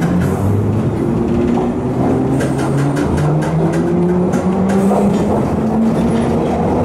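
Bakerloo line tube train (1972 Stock) accelerating, its traction motor whine rising steadily in pitch, with short clicks of the wheels over the rails.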